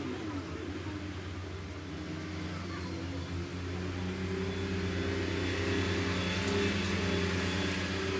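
A steady motor hum with an even pitch, growing louder about halfway through.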